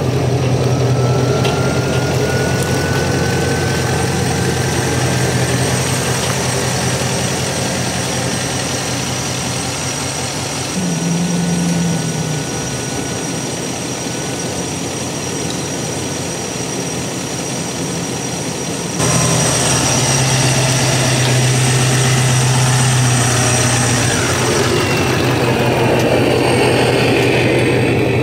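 Pickup truck engine running steadily at low speed while it backs the boat trailer into the water and pulls it out again, with a faint rising whine in the first few seconds. The sound changes abruptly twice.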